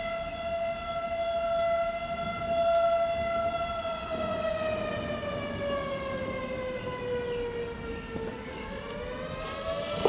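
Outdoor tornado warning siren wailing: one steady tone that starts slowly falling in pitch about four seconds in, then begins to rise again near the end.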